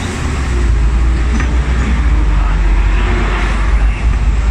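Hong Kong double-decker tram running along its tracks, heard on board from the upper deck: a steady, heavy low rumble, with road traffic around it.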